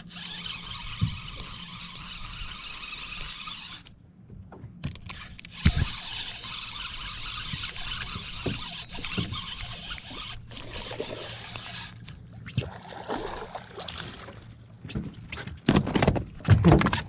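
Handling sounds of a spinning rod and reel in a small aluminium boat: scattered knocks and clicks over a steady hiss, growing busier and louder near the end.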